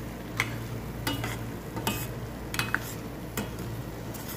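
A spatula stirring boiled eggs in thick chilli balado paste in a stainless steel pot, with short irregular scrapes and knocks against the pot every half second or so, over a steady low hum.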